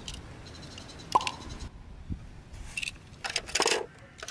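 Die-cast toy minicars being handled and set into a plastic toy car-carrier case: a sharp click with a short ring about a second in, a soft knock, then a burst of small clattering and scraping as a car is slid into a plastic shelf slot.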